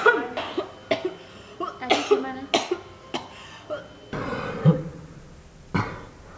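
A person coughing repeatedly: about eight short, sharp coughs spaced roughly half a second to a second apart.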